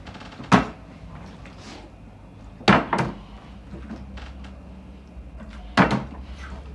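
Plastic water bottle being flipped and landing on a table with sharp knocks: one about half a second in, a quick double knock near the middle, and another double knock near the end.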